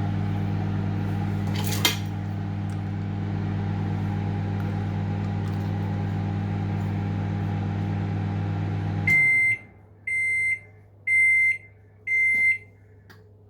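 Microwave oven running with a steady hum, with a single click about two seconds in; the hum cuts off about nine seconds in and the oven beeps four times, about once a second, at the end of the cooking time.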